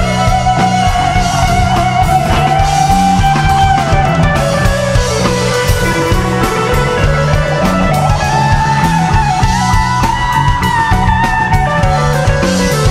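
Live rock band playing an instrumental jam: a Stratocaster-style electric guitar plays long held lead notes that slide down and back up, over bass, drum kit and keyboards.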